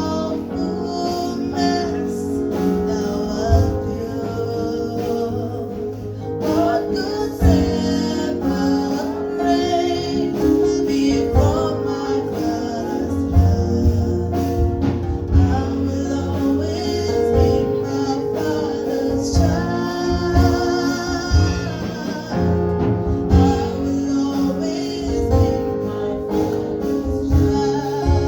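Gospel worship song: voices singing over instruments, with a steady low beat.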